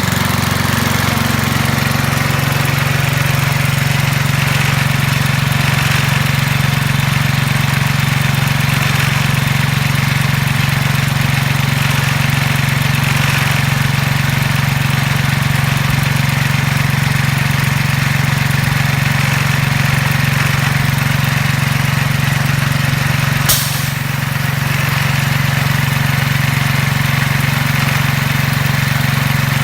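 Midland petrol-driven dive air compressor running steadily at a constant speed. A brief sharp hiss cuts in once, about three-quarters of the way through.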